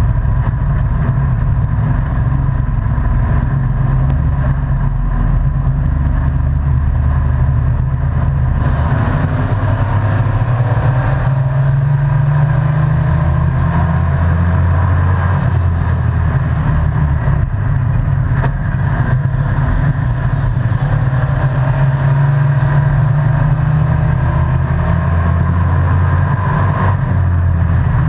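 Race truck's engine heard from inside the cab, running loud and steady with its pitch slowly rising and falling as the throttle is worked around the oval. It gets louder and harder about a third of the way in and eases off near the end.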